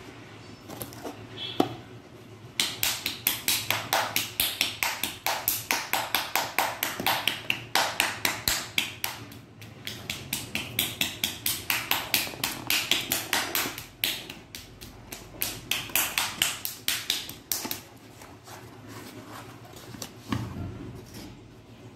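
Fingernails scratching and picking at the packaging of a small cardboard box and its plastic wrap: a fast run of sharp scratchy clicks, about four a second, that stops briefly about two thirds of the way through and dies away near the end.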